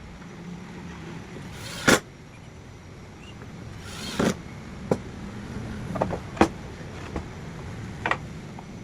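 A series of sharp knocks and taps at irregular intervals over a low steady background hum: two loud knocks, about two seconds apart, then several lighter taps.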